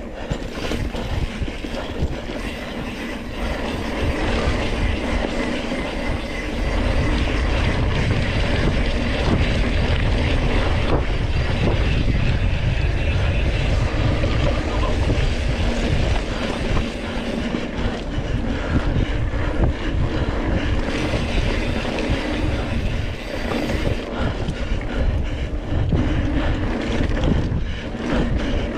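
Surly Krampus single-speed mountain bike ridden over a rough dirt trail: steady rumbling and rattling from tyres and bike, with rushing wind, getting louder about six seconds in.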